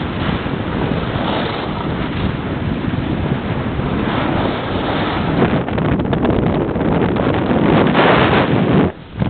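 Wind rushing over a handheld camera's microphone while skiing fast downhill, growing louder toward the end and briefly dropping away just before it ends.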